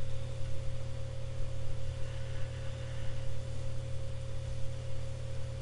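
Steady low electrical hum with a thin higher tone and background hiss, as from a microphone or recording line picking up mains hum.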